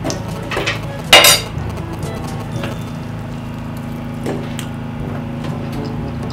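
A fork clinking and scraping against a bowl during eating, a few light clicks with one louder clatter a little over a second in.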